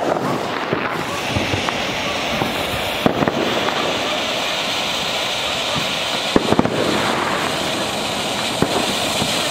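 Ground fountain firework hissing steadily as it throws up a column of sparks, with a few sharp crackling pops, near the start, about three seconds in and about six and a half seconds in.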